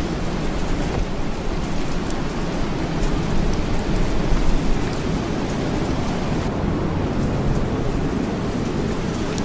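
Steady rain with a low rumble of thunder beneath it, swelling slightly about four seconds in.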